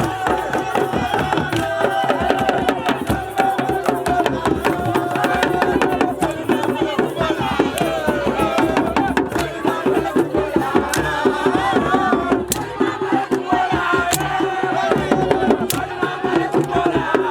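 Hand drums beating a fast, dense rhythm under voices singing or chanting a melody.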